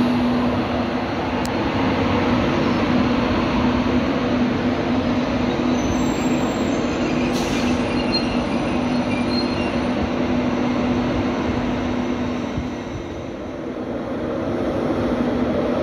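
Class 91 electric locomotive moving slowly through the station with its Intercity 225 train: a steady electric hum over the rumble of wheels rolling on the rails. It goes briefly quieter near the end.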